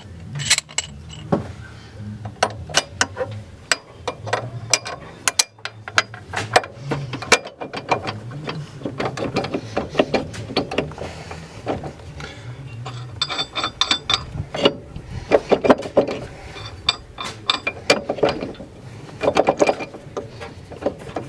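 Hand ratchet clicking in irregular runs, with metal tool clinks, as bolts are run into the front suspension angle kit.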